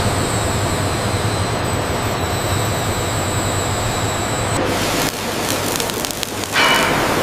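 Gas turbine engine of an M1 Abrams tank running, a steady rush with a thin high whine. About four and a half seconds in the whine stops and a run of sharp clattering knocks follows.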